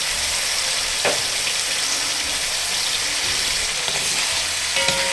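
Pieces of lamb neck sizzling in hot ghee as they brown in a large pan, a steady frying hiss with an occasional click or tap.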